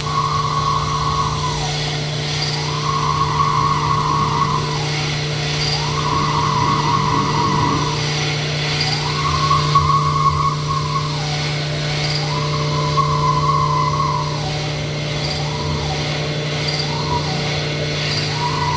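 Sunnen SV-10 honing machine working diamond stones in an engine-block cylinder bore. A steady motor hum runs under a higher whine that swells and falls away about once every three seconds as the hone strokes up and down the bore.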